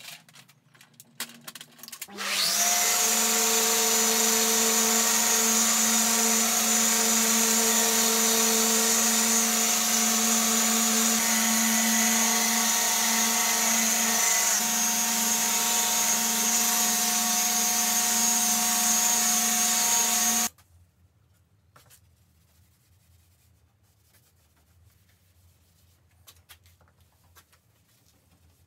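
Orbital sander with a dust extractor running on a wooden worktop. It spins up about two seconds in, runs at a steady pitch and stops suddenly after about eighteen seconds. Faint rubbing follows.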